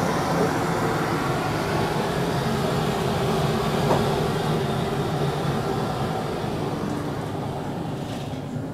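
Steady roar of a stove burner running on high under a large wok of frying garlic and shallots, with the hiss of hot oil.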